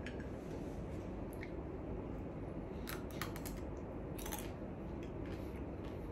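A person eating yakisoba in a quiet room: scattered faint sharp clicks, roughly one every second, over a low steady hiss.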